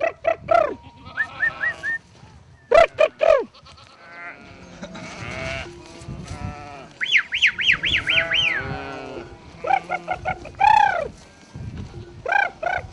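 A flock of sheep and goats bleating, many overlapping calls, with a quick run of high chirping notes a little past the middle.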